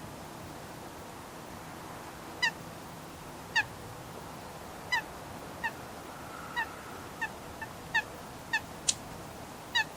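Eurasian coot giving a series of short, sharp single calls, the first about two and a half seconds in and then roughly one a second at uneven intervals, with one sharper, higher click near the end.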